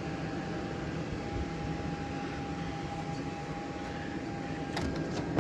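Hail falling steadily on a roof: a dense, even rattle of stones, with two sharp clicks near the end.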